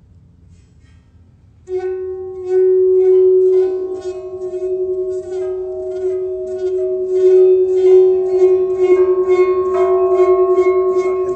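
Large round sand-covered metal plate (a Chladni plate) set ringing by rubbing at its rim: a steady humming tone with overtones starts about two seconds in, with rhythmic scrapes from the rubbing strokes about three or four times a second. A higher overtone grows stronger near the end.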